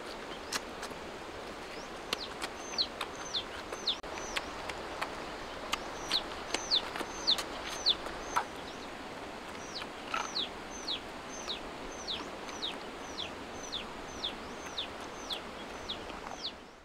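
A young chick peeping: high, short, falling notes repeated about twice a second, starting a couple of seconds in. Under them run an even background hiss and scattered faint clicks.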